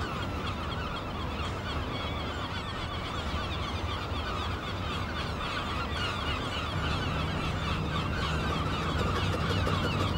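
A flock of birds calling without pause, many short downward-sliding calls overlapping, over a low steady hum.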